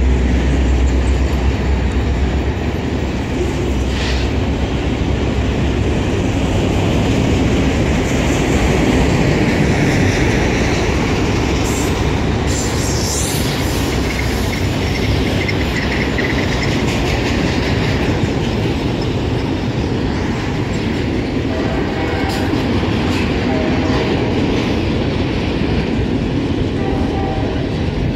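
Freight train of autorack cars rolling past with a steady rumble and clatter of steel wheels on rail. The diesel locomotives' low engine hum fades over the first few seconds. A brief wheel squeal comes partway through, and near the end a grade-crossing bell rings.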